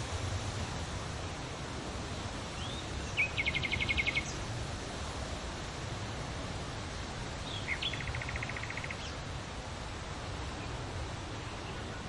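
A bird sings twice: each time a short rising note, then a fast, even trill lasting about a second. This plays over a steady low background rumble.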